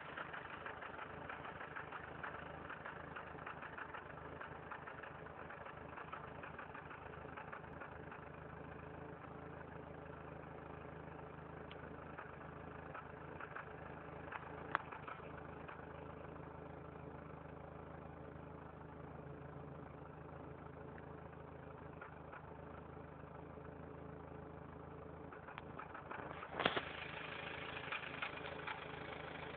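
Factory turbo Toyota 4Runner's turbocharged four-cylinder engine idling roughly, its exhaust pulsing erratically: a rough idle. A sharp click sounds about halfway through, and a louder one near the end.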